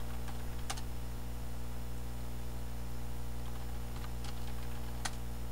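Steady electrical mains hum in the recording, with a few isolated sharp computer clicks, the clearest under a second in and near the end.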